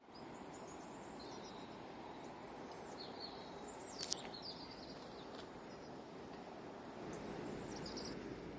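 Birds chirping over steady background noise, with one sharp click about four seconds in.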